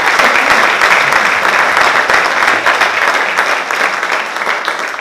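Audience applauding, a dense steady clapping that eases slightly toward the end.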